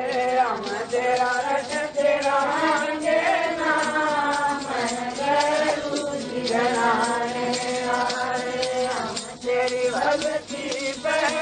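A man's voice chanting a devotional song, with long notes sliding up and down, over a steady light percussion that ticks through the song.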